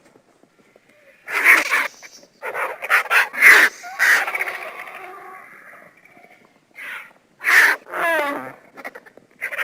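Vultures calling in a series of short, raspy, hissing bursts. About eight seconds in comes one call with a falling pitch.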